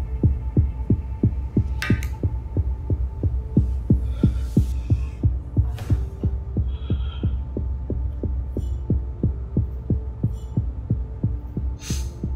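Heartbeat sound effect: a steady, quick run of low thumps over a low steady drone.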